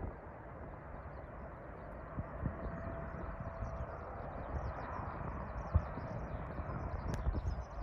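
Wind buffeting the phone's microphone in uneven low thumps over a steady rushing noise, with faint high chirps.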